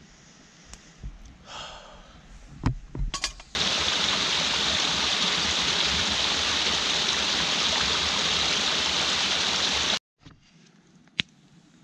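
Small snowmelt stream splashing over rocks in little cascades: a steady rush of water that starts suddenly a few seconds in and cuts off near the end. A few light knocks come before it, and one sharp crack after it.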